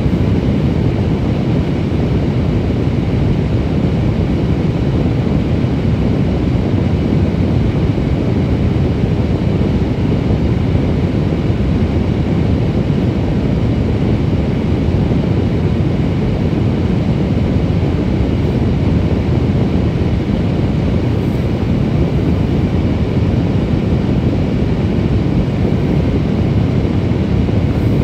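Steady, unbroken low rumble of a vehicle.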